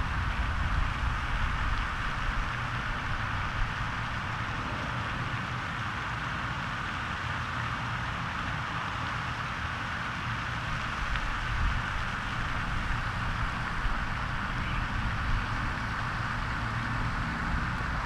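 Steady outdoor ambience: an even hiss with an unsteady low rumble beneath it.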